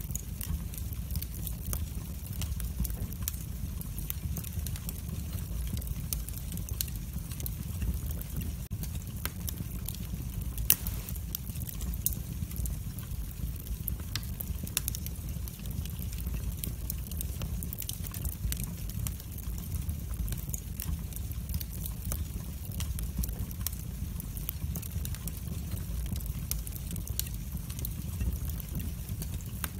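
Wood fire crackling in a fireplace: a steady low rumble of flames with frequent small sharp pops and snaps, a few of them louder, one standing out about a third of the way in.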